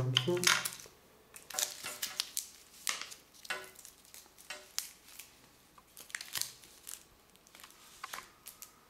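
Clear plastic wrapping crinkling and rustling in irregular bursts as a phone charger and its cable are unpacked.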